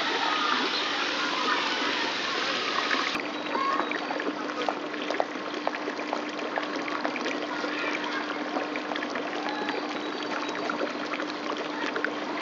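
A small drinking fountain's jet of water splashing into its stone basin. About three seconds in, the sound cuts to quieter open-air background with a faint steady hum and scattered light ticks.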